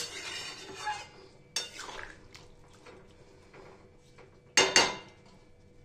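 Spatula stirring a thin chicken curry in a metal kadai, scraping and knocking against the pan, with a sharp knock about a second and a half in and two quick knocks near the end.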